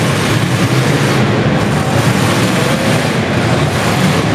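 Engines of several demolition derby cars running and revving together in a loud, steady rumble.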